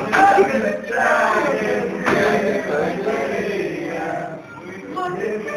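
Several male voices chanting together in a sing-song way, loud and overlapping, dipping briefly near the end.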